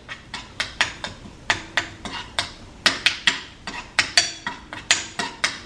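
A spoon clinking and scraping against a frying pan as onions are stirred, in irregular clicks about three or four a second.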